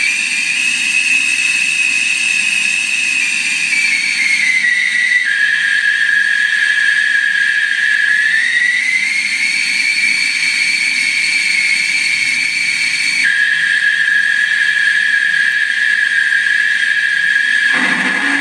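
Simulated F/A-18 jet engine sound from a model's soundboard speakers: a loud turbine whine over a rushing hiss, changing with the throttle. The pitch drops about five seconds in, rises again around eight seconds, and drops suddenly about thirteen seconds in.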